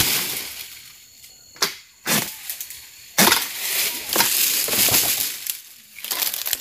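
A long-pole harvesting sickle (egrek) worked against an oil palm's fronds: three sharp cracks of the blade cutting, then rustling of palm fronds.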